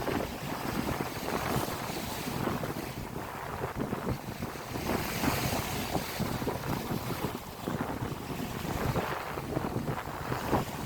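Strong wind buffeting the microphone in uneven gusts, with sea waves washing underneath.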